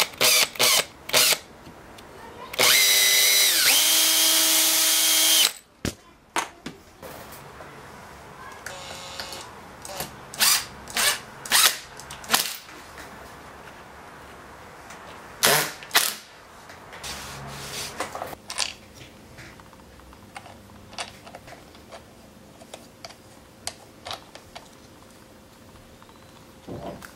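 An electric drill runs for about three seconds, boring a hole into a small wooden handle block, its pitch dropping as it works. Clicks and knocks from handling and fitting wooden parts come before and after it.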